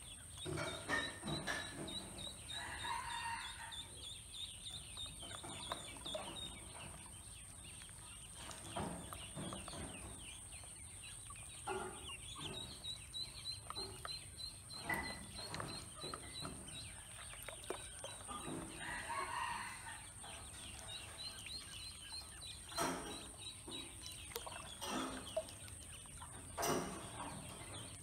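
Ducklings peeping in quick high runs while they swim and dabble in a shallow plastic basin of water, with small splashes.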